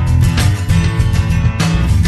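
Background music led by a strummed guitar, with a steady beat and a strong bass line.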